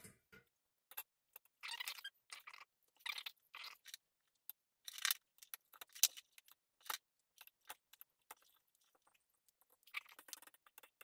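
Small parts being handled on a workbench: Peltier modules set down on a copper plate and their lead wires moved, giving irregular light clicks, taps and short scrapes with gaps between them. The sharpest clicks come about five and six seconds in.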